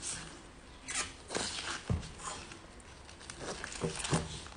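Husk leaves being peeled and torn off a cooked ear of white-and-purple corn: several short, irregular bursts of crackly rustling and tearing.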